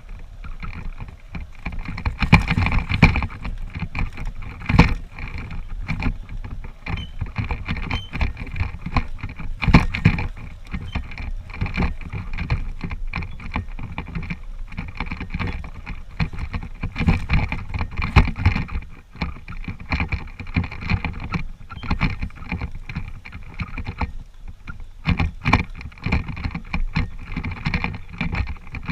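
Honda CG125's single-cylinder four-stroke engine running low on a steep, rough dirt downhill, with many irregular knocks and rattles as the bike jolts over bumps and ruts.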